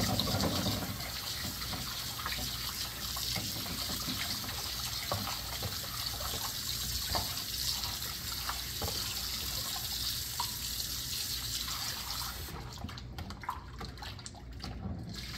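Kitchen tap running into a plastic container of fish fillets in a stainless steel sink, with small splashes as a hand swishes the fillets through the water. The tap shuts off about three-quarters of the way through, leaving only the splashing.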